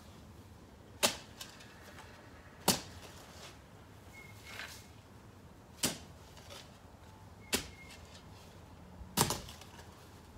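A spade digging a planting hole in garden soil: five sharp strikes into the ground, about one every second and a half, each followed by a short scrape.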